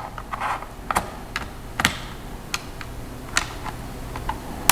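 Light, irregular clicks and taps of hard plastic and a small tool on a laptop being taken apart, about half a dozen in all.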